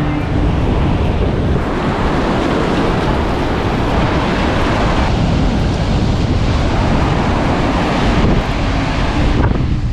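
Strong wind buffeting the microphone over ocean surf breaking and washing up the sand.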